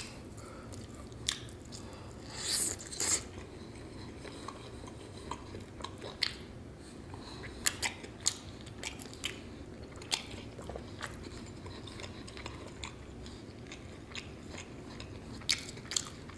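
A person chewing and biting into fried chicken wings, with scattered short crunchy bites and clicks, a louder cluster of bites about two and a half seconds in.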